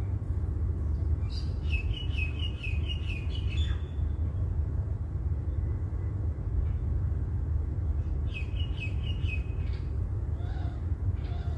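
Steady low rumble of road and engine noise inside a moving car's cabin. Over it, two runs of rapid high chirps, the first about a second in and the second about eight seconds in.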